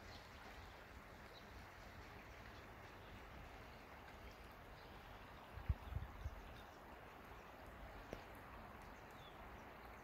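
Faint, steady rush of a shallow stream running over stones, with a few low thumps on the microphone a little past halfway.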